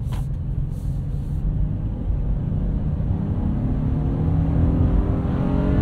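Honda 3.5-litre V6 accelerating hard, heard from inside the cabin over tyre and road noise. After about two seconds the engine note starts rising steadily and grows louder as the revs climb.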